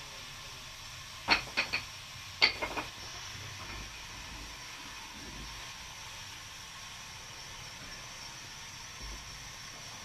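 Steady hiss of sawmill machinery, broken by two quick runs of three sharp knocks: one a little over a second in, the other about a second later.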